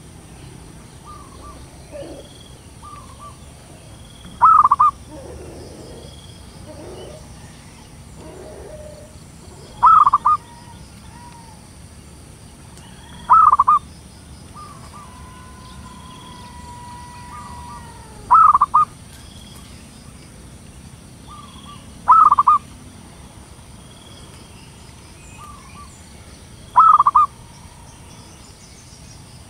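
Zebra dove (perkutut) calling: six loud, short trilled calls a few seconds apart, with fainter cooing notes between them. These are a female's calls, the kind used as a lure for males.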